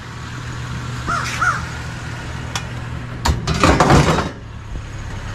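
A crow cawing twice, about a second in, over a steady low hum. About three and a half seconds in comes a louder rustling clatter lasting about a second, as scrap is handled in a curbside trash pile.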